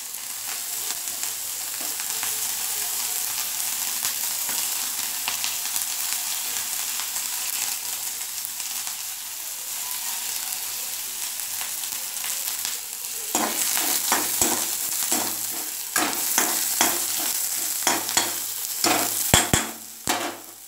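Chopped onion sizzling in hot oil in a steel kadhai, a steady loud hiss. From about two-thirds of the way through, a spatula repeatedly clinks and scrapes against the pan as the onion is stirred.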